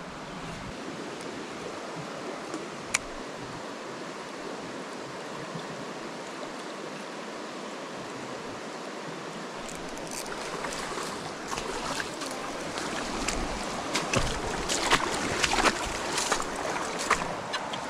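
Steady rush of a small rocky trout creek flowing. From about ten seconds in, a run of sharp clicks, knocks and scuffs sounds close by, over the water noise.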